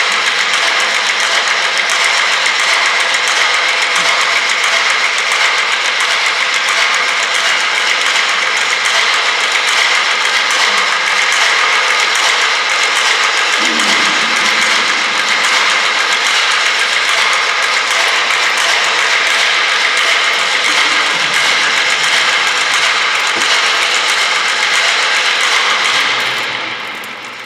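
A trio of percussionists playing objects on tabletops in a contemporary piece, making a loud, dense, continuous rattling texture with steady ringing tones running through it. It fades away near the end.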